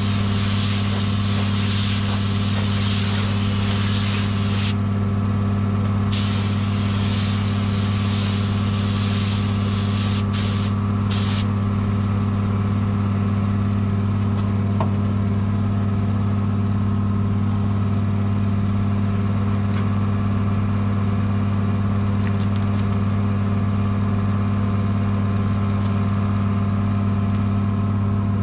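Spray gun hissing in two long bursts of about four to five seconds each, then two short blips about ten and eleven seconds in, as clear coat is sprayed onto a repaired car bumper. Underneath is the steady low hum of a running motor.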